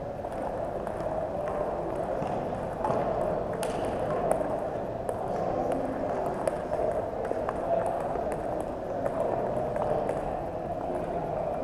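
Table tennis balls clicking irregularly off tables and paddles, over a steady background hum.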